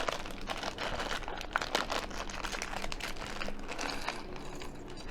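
Plastic packaging crinkling and rustling as a small toy package is handled and opened by hand, with irregular crackles throughout.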